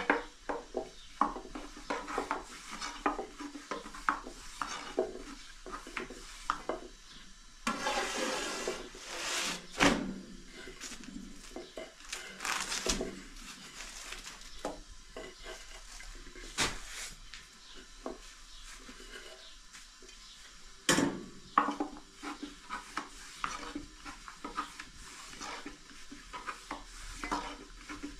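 Long, thin wooden rolling pin working a sheet of flatbread dough on a cloth: quick, irregular clacks and taps as it is rolled and lifted. A longer rustle comes about eight seconds in and a single louder knock a little past twenty seconds.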